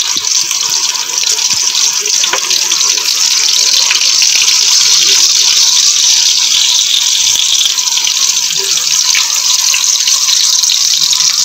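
Oil sizzling in a pan as stuffed bitter gourds (karela) fry to brown, a steady hiss.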